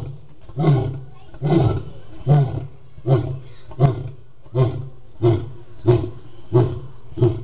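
Male lion roaring: the end of a roaring bout, a series of about ten short, deep grunts a little under a second apart, each briefer than the last.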